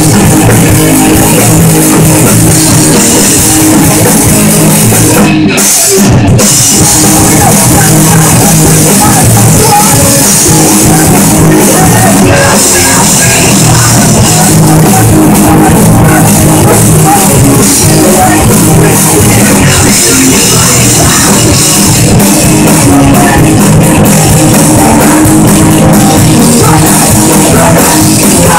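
A live rock band playing loud on electric guitars and a drum kit, with vocals at the microphone. The sound briefly thins about five seconds in.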